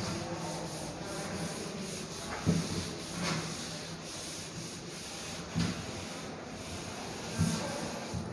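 Chalkboard duster wiping chalk writing off a blackboard: a steady rubbing, with a few short knocks along the way.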